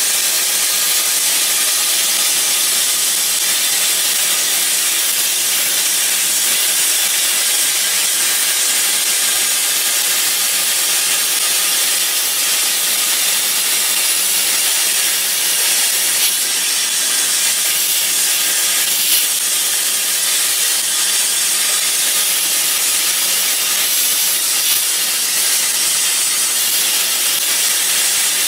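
Plasma cutter cutting through a steel wheel rim as the rim is turned, a steady, even hiss of cutting air and metal.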